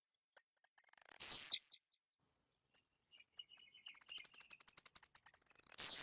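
Blue-black grassquit (tiziu) singing twice: each song is a rapid run of high ticks ending in a louder, falling note.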